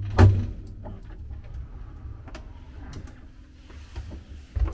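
Old cage lift stopping with a loud clunk about a quarter second in, its low motor hum dropping away. Scattered metallic clicks and rattles of the iron grille gate follow, with a heavier clank near the end as the gate or door is opened.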